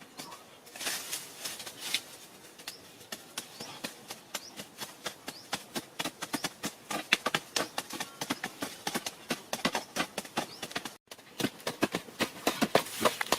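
A long run of short, sharp knocks or taps, sparse at first and then several a second, with a brief break about eleven seconds in.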